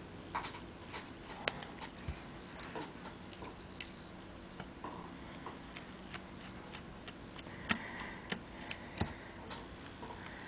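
Small, irregular metal clicks and taps of a screwdriver and clarinet keywork while the pivot screws and keys are taken off the lower joint, over a faint steady hum.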